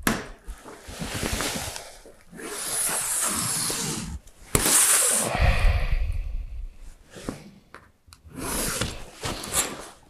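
Rubbing and scraping as a long steel ruler is slid and shifted about on the sheet being marked out, in several stretches. A sharp knock about four and a half seconds in is followed by a louder stretch with a deep rumble.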